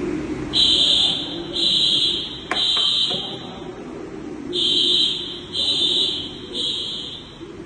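Fire alarm sounder being tested, giving a high, steady electronic tone in a three-pulse evacuation pattern: three tones, a pause, then three more. A single click comes about two and a half seconds in.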